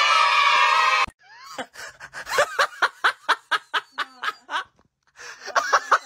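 A person laughing hard in a quick run of short 'ha' bursts, about four a second, with a short break and a second run near the end. It opens with a loud, held cry lasting about a second.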